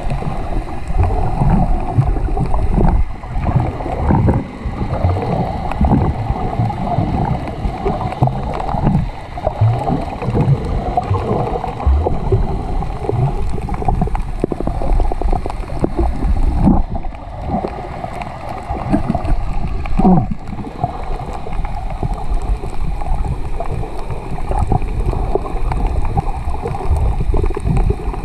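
Muffled water sloshing and gurgling picked up by a camera held underwater, an uneven low rumble.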